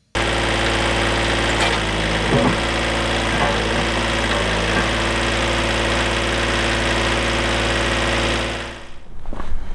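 Kubota B-series compact tractor's diesel engine running steadily at a constant speed, with a few light clinks in the first five seconds. The engine sound fades away near the end.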